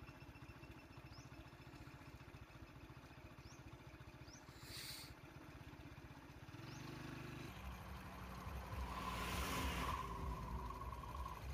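Motor vehicle engines: a low, steady engine rumble, then from about the middle a vehicle drawing near and growing louder, loudest just before the end. A short hiss about five seconds in, and faint short chirps about once a second in the first half.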